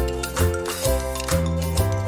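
Background music with a steady beat of about two percussive hits a second over sustained bass notes that change every half second or so.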